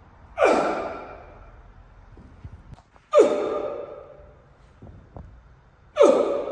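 A man's forceful out-breaths, three sharp voiced huffs about three seconds apart, each fading over about a second: hard exhalations of effort, one on each explosive rep.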